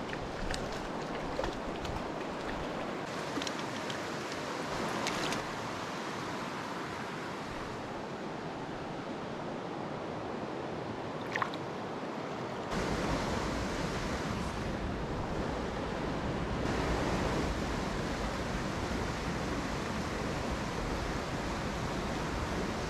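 Creek water running over a rocky streambed, a steady rush, with a few light clicks and one sharper click about eleven seconds in; about thirteen seconds in, the rush gets deeper and a little louder.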